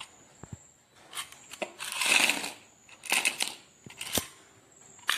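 Plastic hair-clip case and metal bobby pins being handled: short bursts of crinkling and rattling with a few sharp clicks, the loudest burst about two seconds in.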